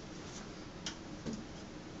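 Utility knife blade drawn along a ruler, slicing through two overlapping layers of peel-and-stick wallpaper: a couple of short, faint scratching strokes.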